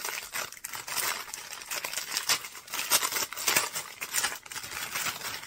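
Thin clear plastic packaging bag crinkling as it is pulled open by hand, an irregular run of sharp crackles.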